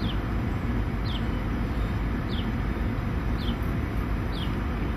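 A steady low rumble of outdoor background noise, with a bird giving a short, falling chirp about once a second.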